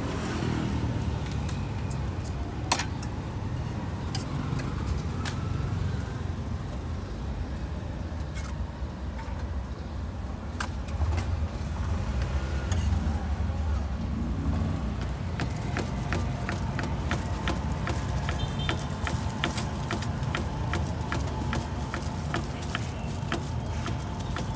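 Steady low rumble of street traffic with scattered clicks of utensils. In the second half a knife taps quickly and repeatedly on a wooden chopping board, slicing cold meat roll.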